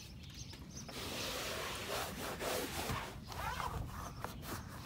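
A cotton towel rubbing over a car's inner door panel and door jamb, an uneven scratchy rustle of wiping strokes.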